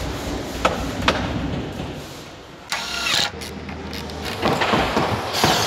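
Mechanical assembly noises: two sharp clicks, then a short ratcheting, machine-like burst about halfway. Louder clattering noise builds near the end.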